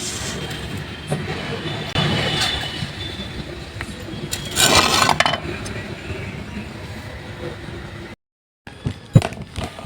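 Hand tools working on a car's front suspension: metal clinks and scrapes, with a louder rushing burst lasting about a second near the middle and a few sharp knocks near the end.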